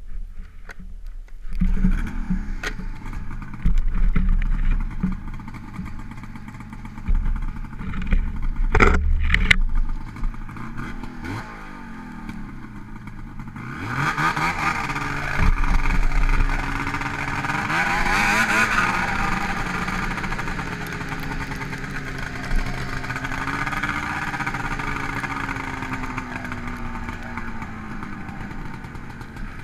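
2002 Ski-Doo MX Z X 440 snowmobile's two-stroke engine starting about a second and a half in, revved in several sharp bursts, then running continuously under throttle from about halfway, its pitch rising and falling as the sled rides along.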